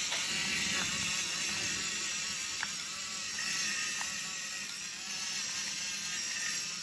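Electric pepper grinder's small motor whirring steadily as it grinds peppercorns, with a few faint clicks.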